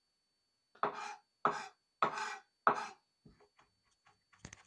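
Kitchen knife cutting garlic on a cutting board: four strong strokes about half a second apart, followed by a few lighter taps and clicks near the end.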